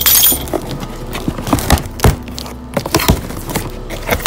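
A cardboard parts box being cut open with a key and handled. A short scraping hiss at the start as the packing tape is slit, then a run of irregular knocks and thumps of cardboard flaps and box being pulled and moved.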